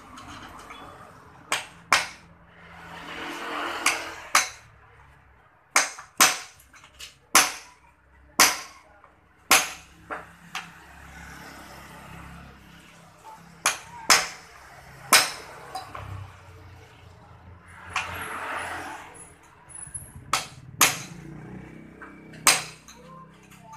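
Hand hammer striking metal in about twenty sharp, irregular blows, some in quick pairs, during repair of the motorcycle's leaking exhaust.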